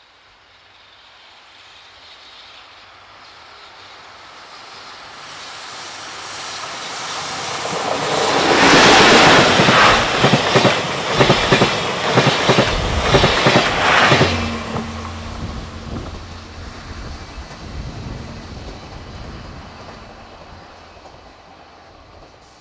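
An EF81 electric locomotive and its train of passenger coaches pass close by. A rumble builds for several seconds, then comes about six seconds of loud, rapid clickety-clack of wheels over rail joints as the coaches go past, and the sound fades slowly away as the train leaves.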